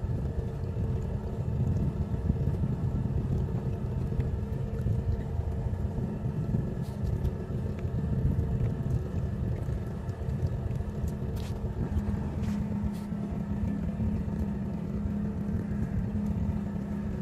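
Small boat's engine running steadily, a low drone with a constant hum, mixed with wind rumble on the microphone. A few faint clicks come through near the middle.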